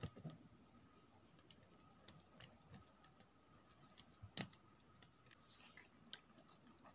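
Faint, scattered clicks and taps of a spatula knocking against a ceramic bowl while stirring pink glue slime, with a sharper tap just after the start and a louder one about four and a half seconds in.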